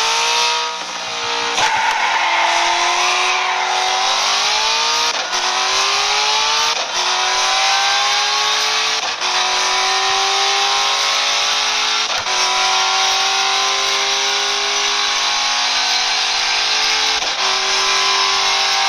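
Nissan GT-R's engine pulling under a long, steady acceleration, its note climbing slowly in pitch, over a constant hiss of wind and tyre noise. There are a few short thumps along the way.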